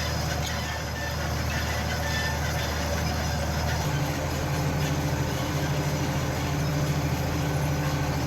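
Farm tractor engine running steadily, its engine note changing pitch about four seconds in.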